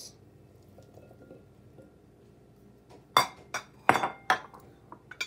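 A small ceramic bowl clinking against a glass mixing bowl and the stone countertop: four sharp, ringing clinks close together about three seconds in, then a few lighter taps near the end.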